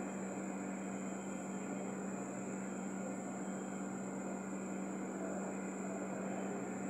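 Steady machine hum and hiss: a constant low hum with a faint high-pitched whine over an even hiss.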